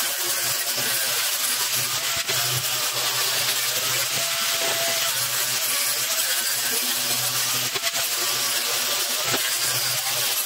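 Angle grinder with an abrasive disc grinding the cut edges of steel plate, a steady grinding hiss with the motor's hum rising and falling under it.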